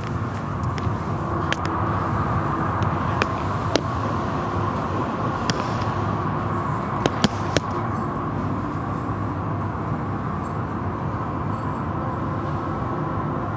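Automatic car wash heard from inside the car: a steady rushing of wash machinery and water against the car, with a handful of sharp taps in the first half.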